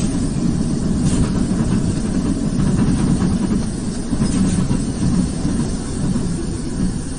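Steady low rumble of a vehicle's engine and road noise heard from inside the cab.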